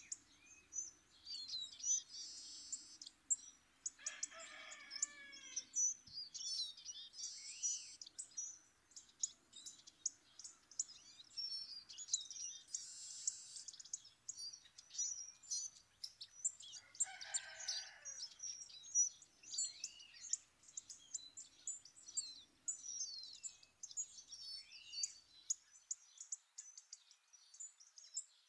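Songbirds calling and singing steadily, with many short, high chirps and ticks overlapping. Twice, about four seconds in and again past the middle, a longer, lower call falls in pitch.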